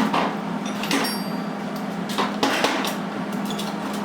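Steel hand tools clanking, with a few separate metal knocks as a ratchet and socket are picked up and fitted onto a freshly welded bolt. A steady low hum sits underneath.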